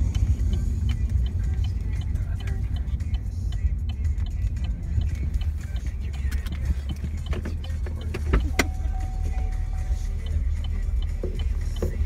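Inside the cabin of a 2015 Chevrolet SS on the move: the steady low rumble of its V8 and the tyres on the road, with a light regular ticking about two to three times a second and faint music from the car's stereo.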